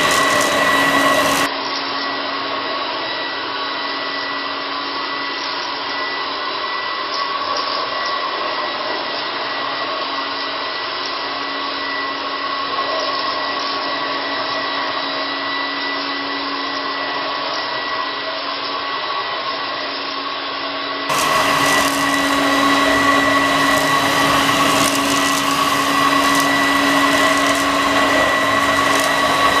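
Homemade bagless cyclonic upright vacuum cleaner built around a Vorwerk, running steadily with a high motor whine as it vacuums a shag rug. From about a second and a half in until about two-thirds of the way through, the sound is duller and a little quieter, then returns to full strength.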